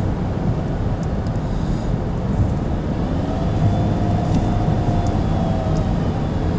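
Nissan Rogue running, a steady low rumble of engine and road noise. A faint high whine comes in about halfway through and holds, the odd noise the owner is recording.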